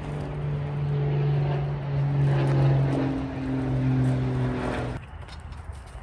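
A mountain bike rolling in on a dirt trail, with a steady low buzzing hum from the bike that sinks a little in pitch and cuts off suddenly about five seconds in as the bike comes to a stop.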